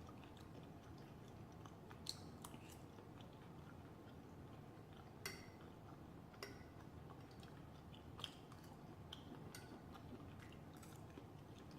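A person quietly chewing food, with a dozen or so faint mouth clicks and smacks scattered over near silence.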